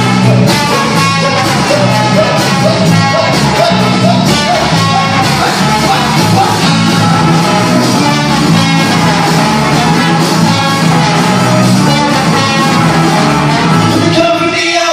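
Live ska-punk band playing loud and fast, with a trumpet and trombone horn section over electric guitar, bass and drums.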